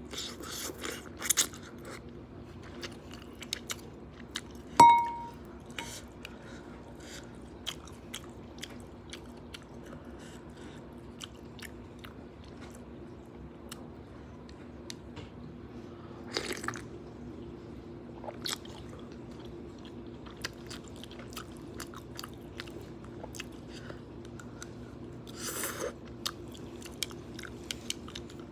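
Close-miked chewing and crunching of noodles and fresh vegetables, with many small wet mouth clicks. About five seconds in, a single sharp clink rings briefly.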